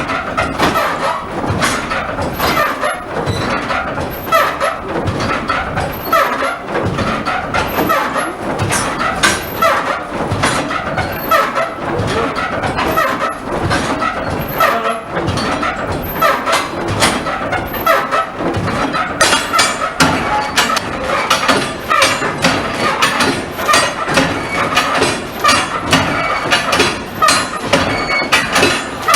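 Historic sawmill's frame saws and gearing running, a continuous rhythmic clatter of knocks as logs are sawn into boards. The clatter turns sharper and brighter about two-thirds of the way through.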